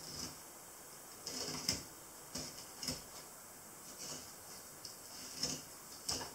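Filleting knife slicing through a smoothhound shark fillet: quiet, irregular short scrapes and clicks from the blade, the longest scrape about a second and a half in.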